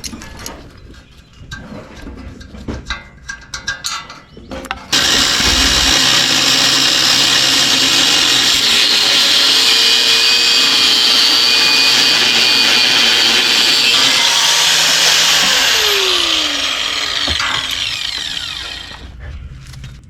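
Handheld power tool starting abruptly and running at full speed for about eleven seconds, then winding down with a falling pitch. Clicks and handling knocks come before it starts.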